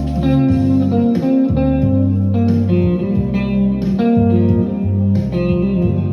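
Background music led by guitar over a bass line, in a bluesy style.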